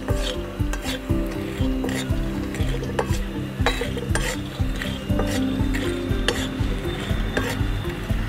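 A spatula stirring and scraping matki sandge (dried moth-bean dumplings) as they sizzle in oil in a deep iron tava, with frequent quick clicks of the spatula against the pan. The sandge are being roasted until they turn reddish. Background music plays underneath.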